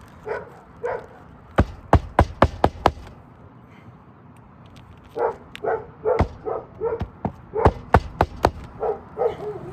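Roofing nails being driven to fasten an asphalt shingle: two quick runs of sharp strikes, six about a second and a half in and about seven more from about six seconds in. A dog barks repeatedly around the strikes.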